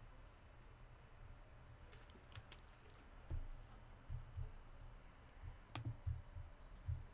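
Faint scattered clicks and several soft low thumps over a steady low hum.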